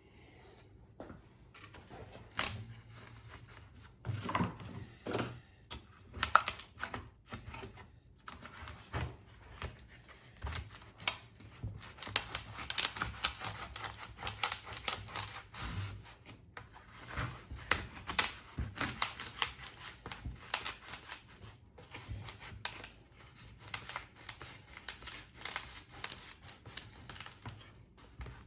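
Rapid, irregular crackling and clicking, with some tearing, as plastic vacuum-bag film and release layers are peeled and pulled off a cured carbon-fibre mudguard layup.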